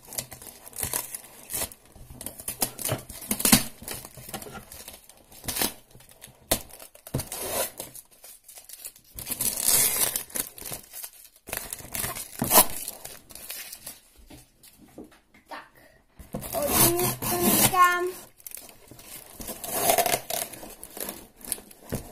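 Adhesive tape being torn and ripped off a heavily taped parcel, in irregular rips with crinkling of the packaging.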